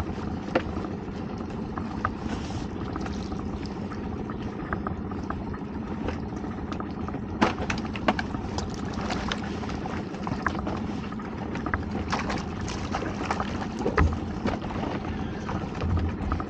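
Small boat's outboard motor idling with a steady hum, water sloshing and splashing against the hull, and scattered clicks and knocks from handling rods and gear aboard.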